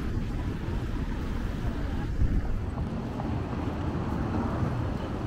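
Wind buffeting the microphone of a camera riding on a moving bicycle: a steady, fluctuating low rumble.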